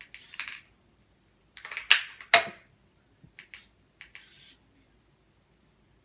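Spring-loaded launcher on a 3D-printed gauntlet test-firing a steel ball. Two loud, sharp clacks about two seconds in, the second ringing briefly, are followed by a few lighter clicks and a short rattle.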